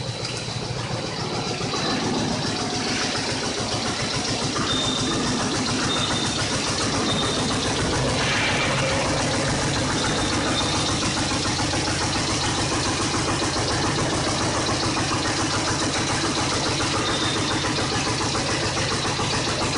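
PVC profile extrusion line running, with its perforating unit punching holes in the moving profiles: a steady, fast-repeating mechanical noise.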